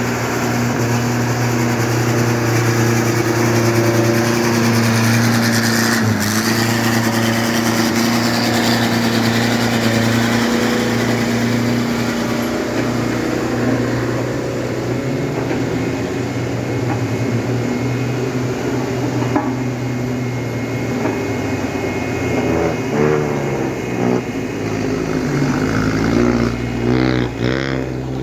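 Heavy vehicle engine running steadily, then revving up and down several times over the last few seconds.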